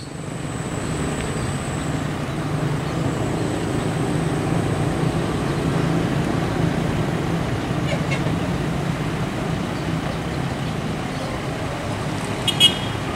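Intercity coach's diesel engine idling steadily, with traffic and motorcycles passing. A short horn toot sounds near the end.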